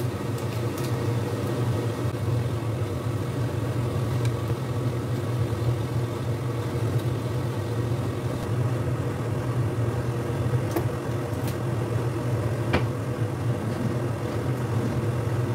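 Steady low motor hum with no change throughout, and a few faint light clicks over it.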